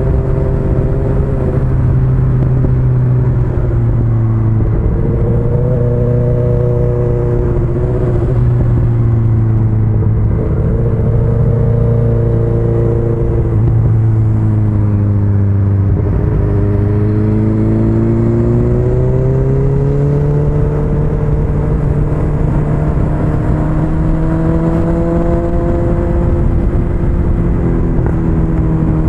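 Motorcycle engine under way, its pitch falling and climbing again several times as the throttle is rolled off and back on through a run of bends, over a steady rush of wind.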